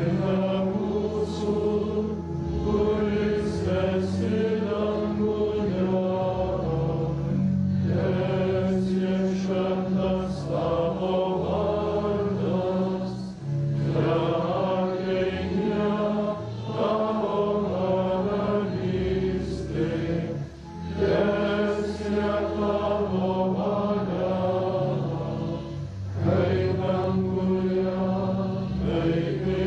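A congregation singing a hymn together, in long, slow phrases with short breaks between them.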